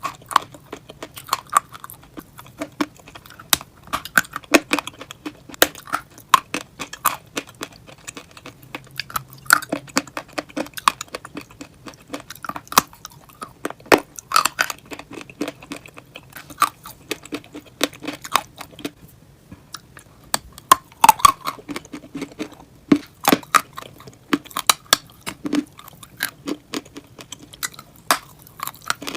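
A person biting and chewing chalky clay, close to the microphone: irregular sharp crunches, sometimes several a second, with softer chewing between.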